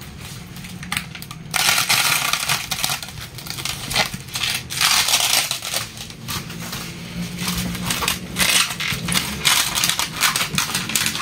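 Clear plastic stretch wrap around a cardboard box being crinkled and rubbed by hand: an irregular crackling that comes in surges, louder from about a second and a half in.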